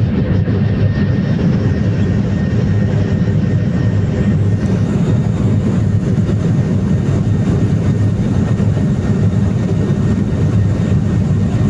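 Airliner engines running, a loud steady low rumble with a faint high whine over it.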